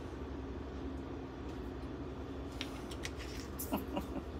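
Steady low room hum, with a few light clicks and taps in the second half as a sesame oil bottle is handled and set down on the kitchen counter.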